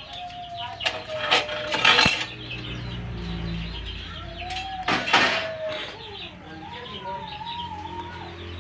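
Chickens clucking and calling close by, with two loud harsh calls about a second and five seconds in and short chirps between them.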